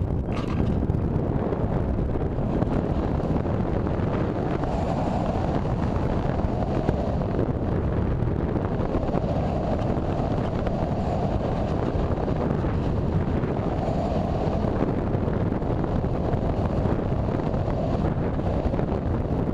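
Airflow rushing over the microphone of a camera mounted on a gliding RC sailplane: a steady low rumbling rush, with a higher rush that swells and fades several times.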